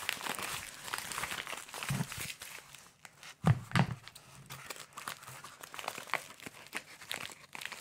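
Crinkling and tearing of paper wrapping and tape as a heavily taped small parcel is unwrapped by hand, with two short thumps close together about three and a half seconds in.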